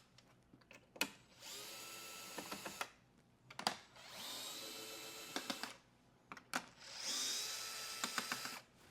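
Power driver with a 3.5 mm hex bit backing bolts out of the screen's back panel: three separate runs of about a second and a half each, the motor whine rising in pitch as it spins up. A sharp click comes just before each run.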